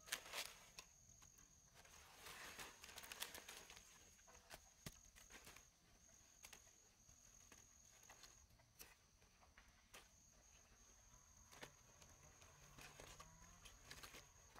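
Cabbage leaves snapping off and rustling as fresh cabbage heads are trimmed by hand and with a knife, with soft crisp crunches and clicks, loudest at the very start and again about two to three seconds in. A faint steady high insect trill runs underneath.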